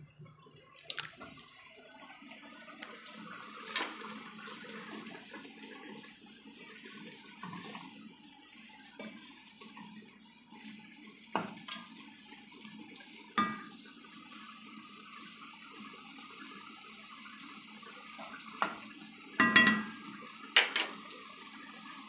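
Chicken pieces sizzling and bubbling in sauce in a stone-coated pot, a steady sizzle throughout. A wooden spoon stirs and knocks against the pot several times, the loudest knocks near the end.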